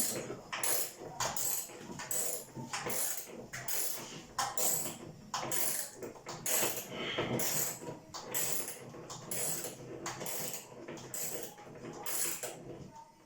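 A ratcheting hand tool worked in a steady rhythm, about one and a half clicking strokes a second, stopping shortly before the end.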